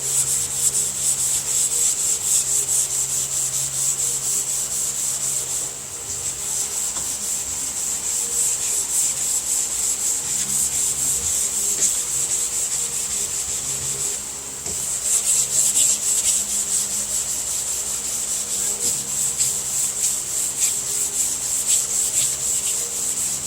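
Long sanding block with 180-grit paper being pushed back and forth by hand over primer on a car hood, in quick, even rasping strokes with two short pauses. The paper is nearly worn out.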